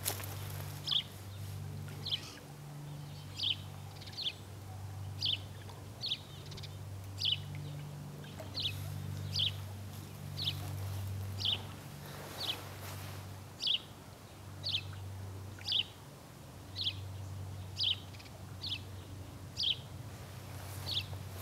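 A small animal's short, high call repeated about once a second, with a low hum underneath that comes and goes.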